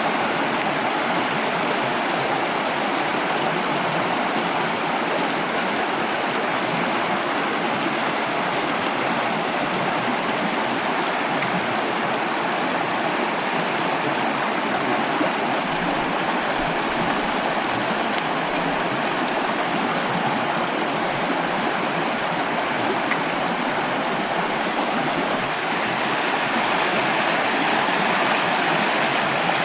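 Valley stream flowing: a steady, unbroken rush of running water.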